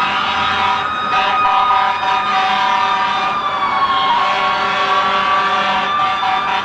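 Several emergency-vehicle sirens sounding at once, overlapping steady wails, with one dipping in pitch and coming back up about four seconds in.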